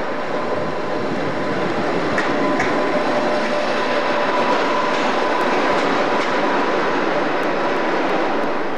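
British Rail Class 86 electric locomotive and its coaches running past along a station platform: wheels and rail noise with a faint steady whine, swelling as the train passes and easing near the end.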